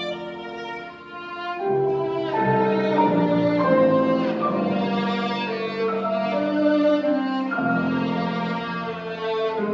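Violin playing a melody of long held notes, with a brief softening about a second in before the notes swell again.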